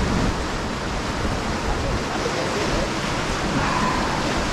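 Steady rushing wash of surf and wind, with no distinct events.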